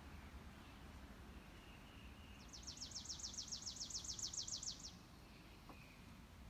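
A bird's trill: a rapid, even run of high notes, about eight a second for a little over two seconds, starting about halfway through. Under it, a faint steady low background rumble.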